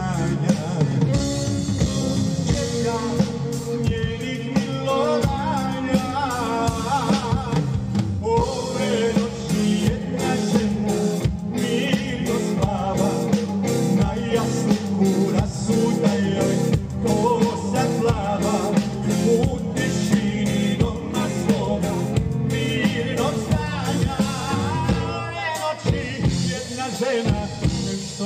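Live band playing a song: drum kit, bass guitar and acoustic guitar, with a man singing at times.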